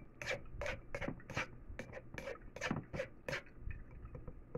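Metal spoon scraping and pressing wet blended pineapple-peel pulp through a fine wire-mesh strainer, in quick strokes about three a second that ease off near the end.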